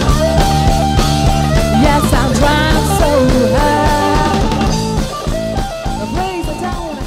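A live band playing, with a woman singing over it; the music fades out over the last two seconds or so.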